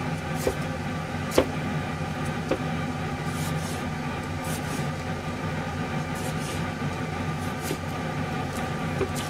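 Chinese cleaver knocking on a plastic cutting board a few times while slicing cherry tomatoes, the sharpest knock about a second and a half in. A steady mechanical hum runs underneath.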